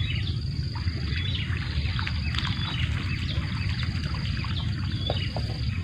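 Steady low rumble of wind on the microphone, with many short, scattered high chirps of small birds.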